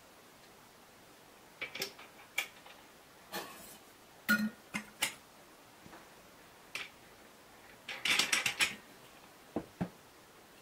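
Irregular knocks and metallic clinks of an angle grinder and a toothed circular saw blade being handled on a wooden bench as the blade is fitted onto the grinder's spindle. The loudest knock comes a little after four seconds, and a quick run of rattling clinks near eight seconds.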